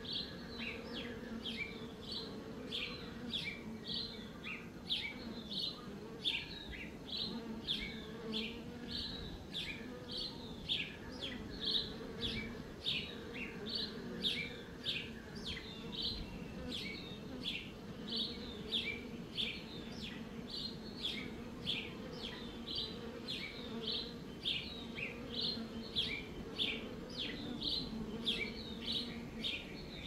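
Honey bees buzzing among the flowers, a low steady hum, with a small bird chirping over it in quick repeated chirps, about two a second.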